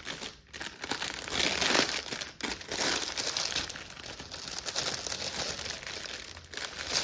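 Packaging crinkling and rustling as a cross-stitch kit is unwrapped by hand, loudest about one and a half to two seconds in.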